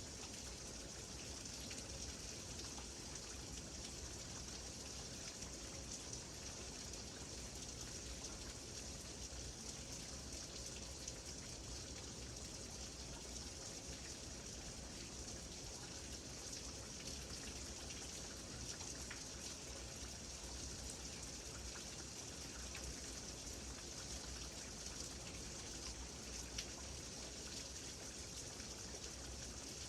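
Rain falling steadily: an even hiss with faint drop ticks scattered through it.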